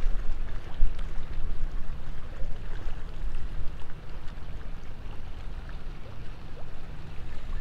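Strong wind blowing across the camera microphone: a low, uneven rush of gusts that keeps rising and falling.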